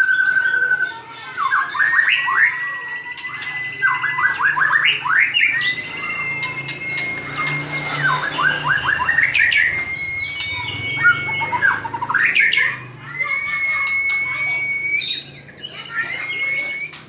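White-rumped shama (murai batu) singing: long, level whistled notes held for a second or two, alternating with quick runs of short sweeping notes and sharp clicks.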